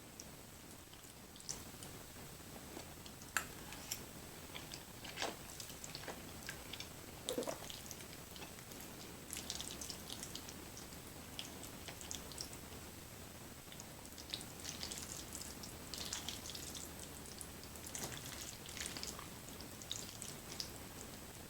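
Close-up mouth sounds of someone chewing creamy fettuccine alfredo: soft, scattered wet smacks and sticky clicks, busier in the second half.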